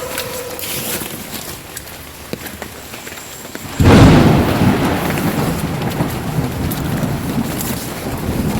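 Steady rain, then about four seconds in a sudden loud thunderclap that rolls on as a rumble under the rain.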